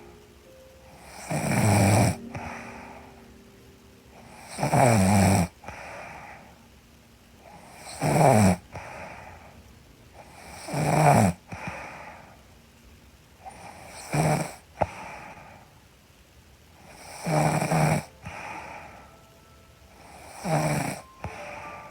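A young woman snoring in her sleep: seven snores about three seconds apart, each about half a second long, with quieter breathing between.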